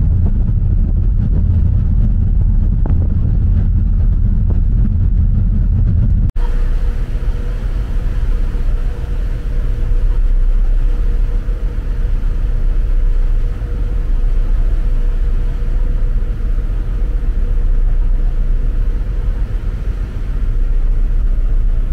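Low, steady rumble of a car ferry's engines heard from the open deck, mixed with wind and rushing water. About six seconds in it cuts to a hissier mix with a faint steady hum.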